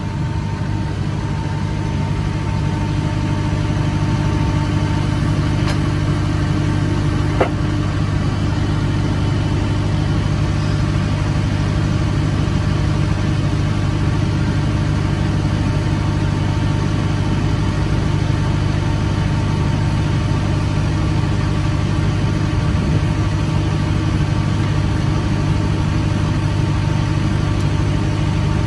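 An engine idling steadily, with one short sharp knock about seven seconds in.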